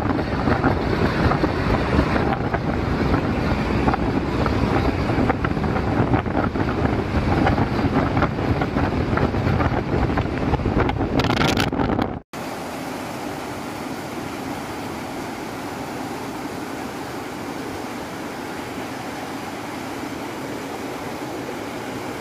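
Wind buffeting the microphone over the rumble of a moving vehicle. About twelve seconds in it cuts abruptly to a quieter, steady road and engine hum.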